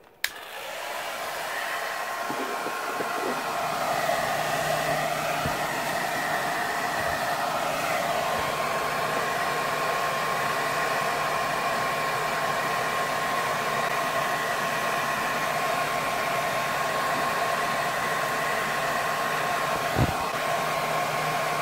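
Handheld hair dryer switched on with a click, its fan noise building over the first few seconds, then running steadily with a constant whine. A single short knock near the end.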